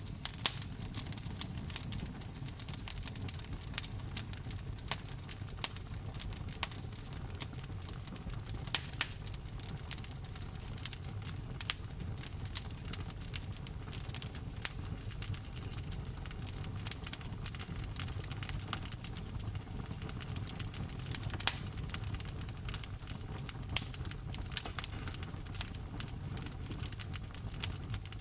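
Wood fire crackling: a dense, irregular stream of small sharp snaps with a few louder pops, over a steady low rumble.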